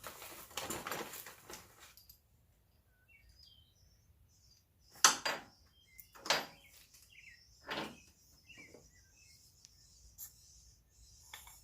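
Parts and tools being handled during the suspension work: a rattling clatter at the start, then three sharp knocks a little over a second apart. Birds chirp faintly throughout.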